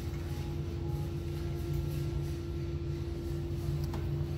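Shopping cart wheels rolling over a concrete floor, a low steady rumble, with a constant hum underneath.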